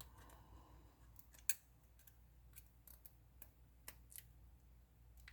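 Faint, scattered clicks and ticks of small repair tools on a smartphone's internal parts during disassembly, the sharpest about one and a half seconds in.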